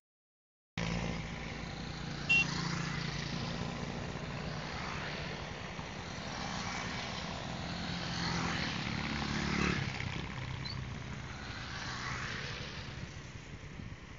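Small motorcycles running past on a road, their engines droning steadily and swelling as one passes close about eight to ten seconds in. The sound cuts in after a second of dead silence, and there is one short sharp blip about two seconds in.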